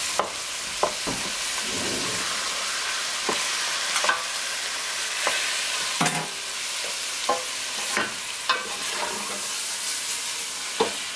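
Ground beef and dried onions sizzling steadily in a stainless steel pot over medium heat, with a wooden spoon scraping and knocking against the pot every second or two as the meat is stirred.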